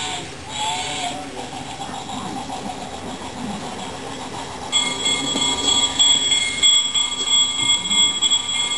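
Toy train running around its track, its motor and wheels making a continuous clattering run. About halfway through, a steady high-pitched tone comes in and holds to the end while the loudness pulses.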